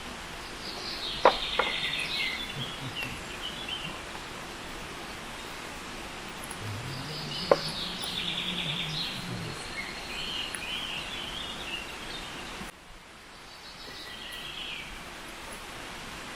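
Small birds chirping and warbling in three short bursts over a steady outdoor hiss, with a few sharp clicks and a low hum lasting a few seconds midway.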